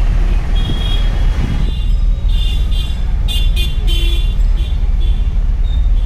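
Steady low engine and road rumble heard from inside a moving vehicle in slow town traffic, with several short, high-pitched horn beeps from the surrounding traffic.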